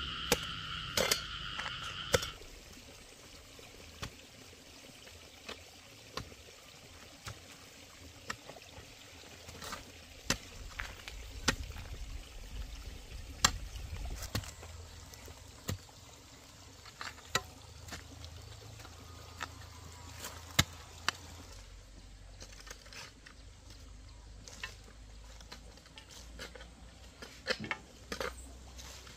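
A hoe chopping into dry, stony soil: irregular sharp knocks of the blade every second or two. A steady, high, two-tone animal call sounds for the first two seconds or so.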